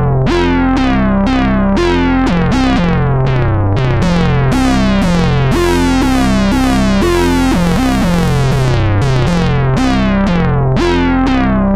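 Moog Subsequent 25 analog synthesizer playing a sequenced line on an oscillator-sync patch: a steady run of short notes, each opening with a bright, falling sweep of overtones.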